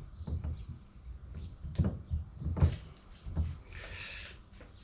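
Knocks and clicks of metal tools and parts being handled while fitting the circlips on a Jeep TJ universal joint, with three sharper knocks about a second apart in the middle.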